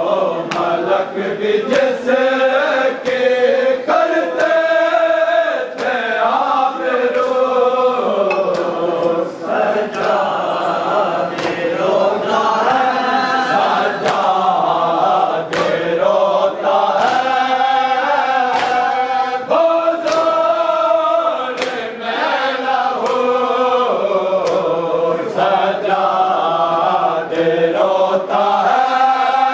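A group chanting a mourning lament in a steady rhythm, with sharp hand strikes on the chest about once a second: the chest-beating of matam keeping time with the chant.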